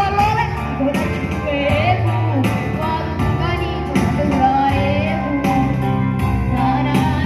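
A song: a high voice singing a wavering, ornamented melody over instrumental backing with steady bass notes.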